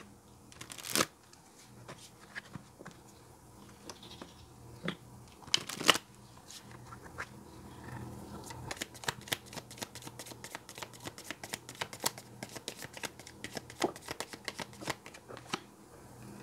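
A deck of oracle cards being shuffled by hand. A few separate card snaps come in the first six seconds, then from about eight seconds in there is a long run of quick, closely spaced flicking.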